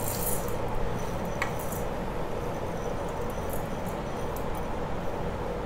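Damp pearl millet grains poured from a glass bowl into a stainless steel mixer-grinder jar: a brief hiss of falling grain in the first second, a single click about a second and a half in, then scattered light ticks of grains over steady background noise.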